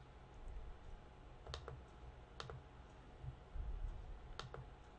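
Computer mouse clicking three times, each click a quick press-and-release pair, about 1.5, 2.5 and 4.5 seconds in, over a faint low hum.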